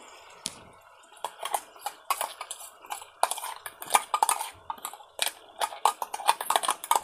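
Steel spatula scraping and clinking against a metal kadai while stirring green masala paste frying in oil: a quick, irregular run of clicks and knocks that starts about a second in.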